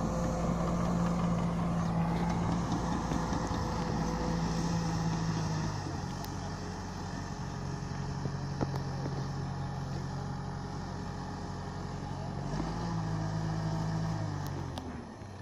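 Diesel engine of a Caterpillar D5K LGP crawler dozer running under load while it grades soil. The engine note drops about six seconds in, climbs again around twelve seconds and falls away near the end as the throttle and load change.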